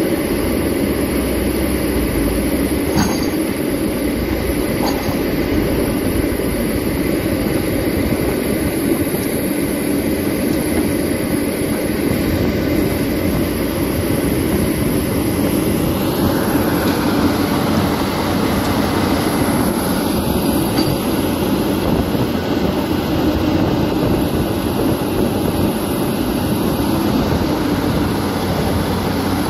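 Caterpillar 320 crawler excavator's diesel engine working hard with its hydraulics, a loud, steady rumble heard close up as it digs and loads soil.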